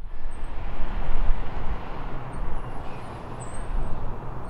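Gusty outdoor rumble, typical of wind on the microphone, over the faint distant engine noise of a Bombardier CRJ-900 twin-jet on final approach.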